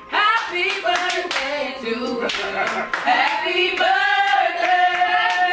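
A group of people singing loudly together with scattered hand claps, ending on a long held note.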